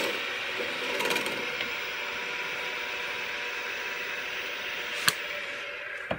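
Wood lathe running with a wooden bowl spinning on it, a gouge making a brief light cut about a second in. A single sharp click about five seconds in, and a few knocks near the end as tools are handled on the bench.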